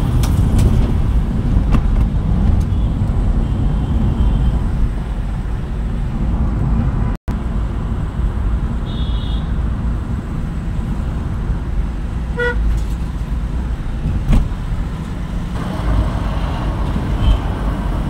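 City road traffic heard from a moving vehicle: steady engine and road rumble with short horn toots, one about nine seconds in and another about twelve seconds in. The sound drops out for an instant about seven seconds in.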